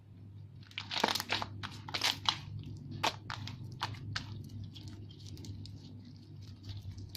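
Clear glue slime with lotion and glitter mixed in, squished and stretched by hand, giving irregular crackles and sticky clicks that start about a second in, over a steady low hum.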